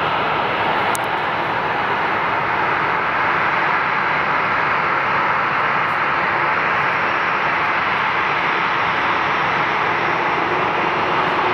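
Boeing 737-800's CFM56-7B turbofan engines running at low taxi power, a steady jet noise that holds even throughout.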